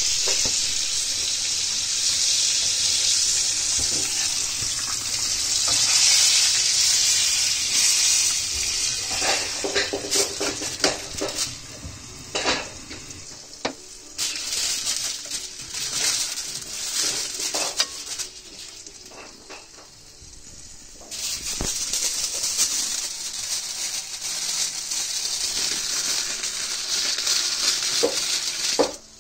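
Ribeye steak searing in hot oil in a pan, a steady loud sizzle, with scattered clicks and knocks of utensils against the pan. The sizzle drops away for a few seconds past the middle, then comes back.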